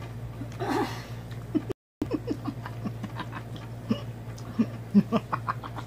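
A man eating with his hands: chewing and lip-smacking clicks with short hums and breathy sounds of enjoyment. A steady low hum runs underneath, and the sound drops out briefly about two seconds in.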